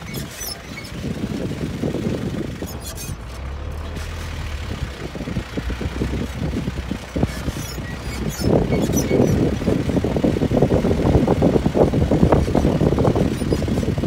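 4x4 safari jeep driving over rough dry grassland: a steady engine and road rumble that turns louder and rougher about eight seconds in.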